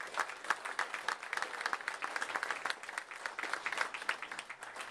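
Audience applauding: many overlapping hand claps.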